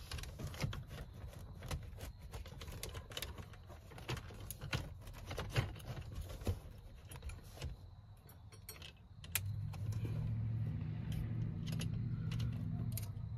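Metal clicks and rattles as a Honda Pilot front seat's wire frame and power lumbar support mechanism are handled and fitted back into the seat back. A steady low hum comes in about two-thirds of the way through.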